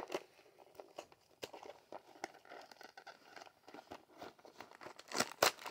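Cardboard Lego set box being opened by hand: faint scattered taps, scrapes and tearing, with a louder burst of rustling about five seconds in.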